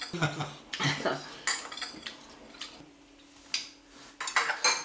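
Cutlery clinking and tapping against dishes during a meal, with a string of light clinks scattered through and several in quick succession near the end.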